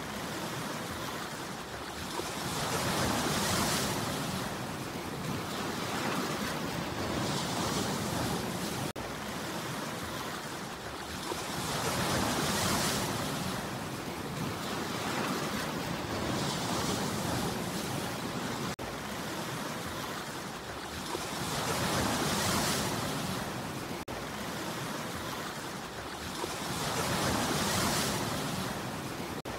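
Ocean surf: waves breaking and washing in, the rush swelling and fading about every four to five seconds. A few very short dropouts interrupt it.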